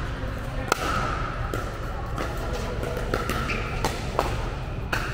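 Pickleball paddles hitting a hard plastic pickleball in a quick volley exchange: a string of sharp pops, about seven in all, the loudest about a second in, ringing in a large indoor hall.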